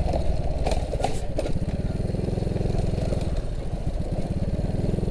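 Honda C70's small four-stroke single-cylinder engine running steadily as the motorcycle is ridden, with a few short knocks about a second in.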